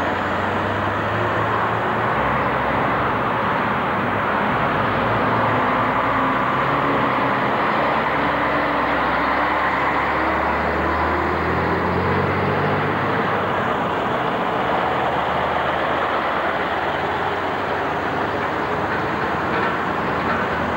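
Diesel engines of articulated lorries pulling away close by, one after another, a deep steady engine drone. The engine note rises as a lorry accelerates near the start and changes again about halfway through.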